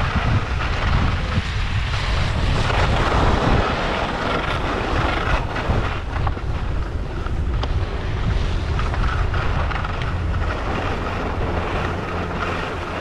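Wind buffeting the camera microphone while skiing downhill, with the steady hiss of skis running on packed snow. The noise eases a little near the end as the skier slows into the lift area.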